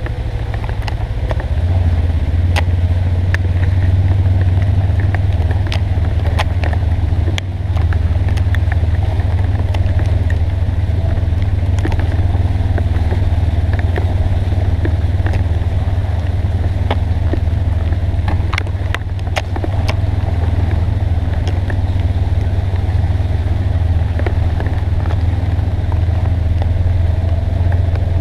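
Polaris Ranger XP 900 side-by-side's twin-cylinder engine running under way, a steady low drone that picks up about two seconds in. Many sharp ticks and clicks are scattered over it.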